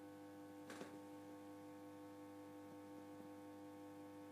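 Near silence with a steady electrical hum made of several held tones, and a faint brief rustle a little under a second in.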